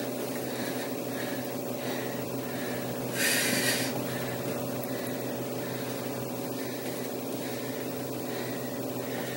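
Steady low hum of room noise in a small room, with one short hiss about three seconds in.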